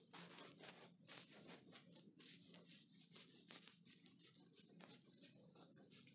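Faint swishing of a duster wiping a whiteboard, a quick run of short back-and-forth strokes.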